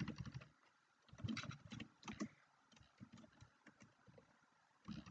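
Faint computer keyboard typing: a few scattered clusters of key presses.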